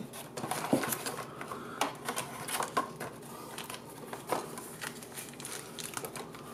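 Hands handling a fuel pump's parts and packaging, making irregular clicks, taps and light rustling.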